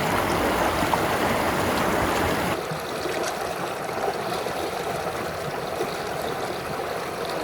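Creek water flowing in a steady rush; about two and a half seconds in it drops abruptly to a softer, thinner rush.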